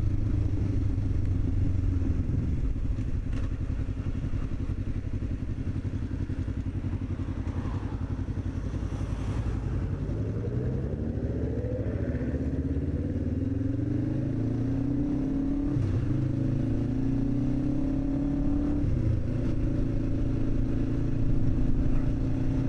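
Motorcycle engine running while riding, mostly steady, with the engine note climbing about ten seconds in and changing again near the end.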